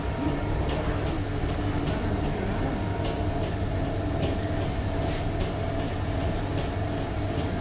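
Steady machinery rumble with a low hum and a few constant tones, and faint clicks scattered over it.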